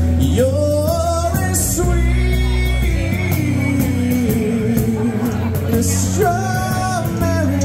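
Live acoustic band: male voices singing long held, sliding notes in harmony over strummed acoustic guitar, electric bass and cajon. A new sung phrase starts a little after six seconds in.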